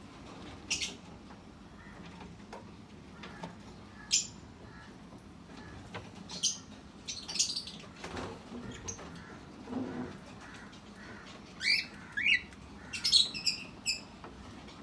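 Cockatiel giving short, sharp squawking calls, some sliding down in pitch, scattered singly at first and then coming in a quicker, louder run near the end.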